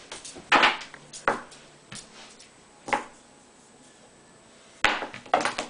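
Handling of a sheet of duct tape on a wooden table: several short, sharp crinkles and taps spread over a few seconds, with a close cluster near the end as the sheet is turned over.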